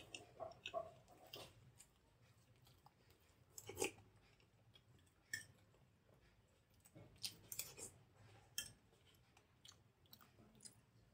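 Faint, close-up mouth sounds of a person chewing soft idli with sambar: scattered short wet clicks and smacks, the loudest about four seconds in and a quick run of them near the end.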